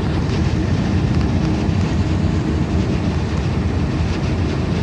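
Steady road and engine noise heard from inside the cabin of a moving vehicle: a continuous deep rumble with no let-up.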